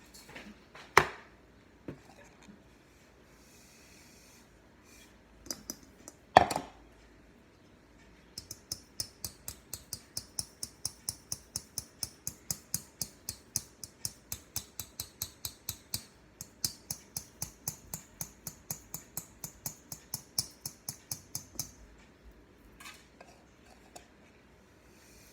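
Two sharp knocks of kitchen utensils, then a hand-squeezed flour sifter clicking steadily, about three clicks a second, for roughly fourteen seconds, with a short break partway through.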